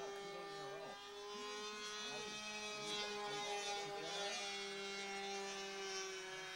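A steady motor drone at an even pitch, sagging slightly lower near the end.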